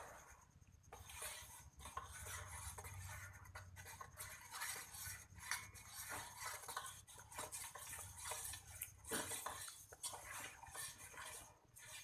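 A spoon stirring a thin liquid batter of milk, water, cornstarch and coconut milk in a pot, with faint irregular scraping and small clinks against the sides.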